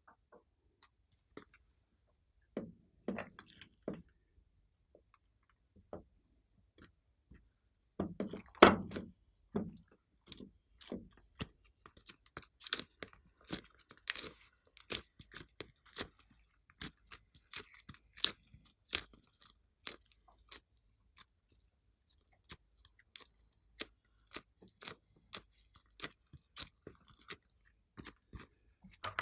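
Clear slime being squeezed and worked by hand, giving short sticky clicks and pops. They are sparse at first, with a loud cluster about eight seconds in, then several quick clicks a second.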